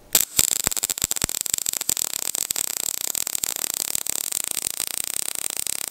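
MIG welding arc on square tubing: a steady crackling sizzle that starts almost at once, with a few sharp pops in the first second and a half.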